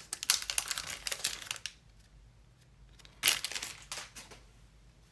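A foil trading-card pack wrapper being torn open and crinkled: a run of crackling for about a second and a half, then another short burst about three seconds in.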